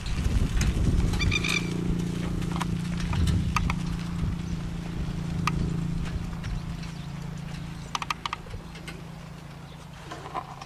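Hooves of a harness horse pulling a sulky over gravel, clip-clopping loudly at first and fading as it moves away. A short high-pitched cry about a second and a half in.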